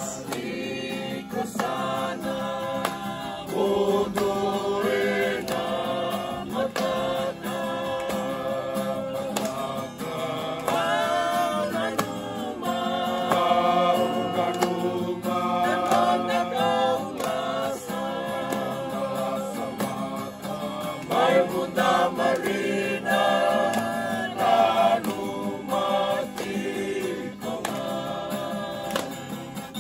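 A group of men and women singing a farewell song together, accompanied by an acoustic guitar.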